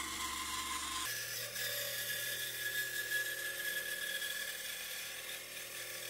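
Bench bandsaw running and ripping a wooden board into a strip: a steady motor whine over the even noise of the blade cutting.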